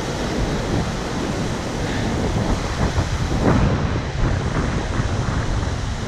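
Ocean surf breaking and washing up the beach, mixed with wind buffeting the microphone: a steady, loud rushing noise.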